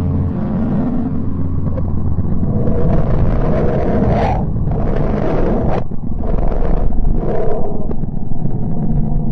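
Eerie space-sound drone offered as the sound of the planet Mercury: a deep, steady rumble with hissing swells that rise and cut off abruptly several times through the middle.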